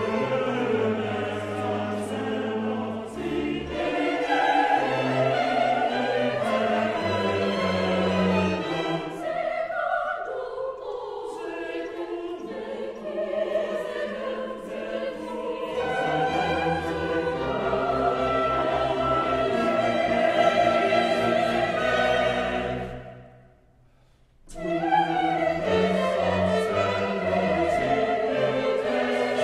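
Mixed choir and string chamber orchestra performing Classical-era sacred choral music. About 23 seconds in the music breaks off for a moment of near silence, then choir and orchestra come back in together.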